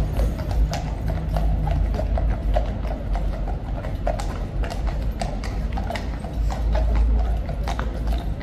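Horses' shod hooves clip-clopping on paved ground as several mounted horses walk and turn, an uneven run of clacks several a second. A low rumble runs underneath.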